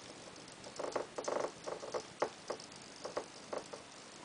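Small hobby servo motor buzzing in short runs about a second in, then a scattering of clicks as it jerks the tilting platform to new angles.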